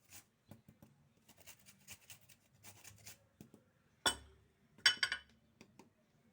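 Fresh ginger root rubbed across a hand grater in quick rasping strokes, then two louder sharp knocks about four and five seconds in.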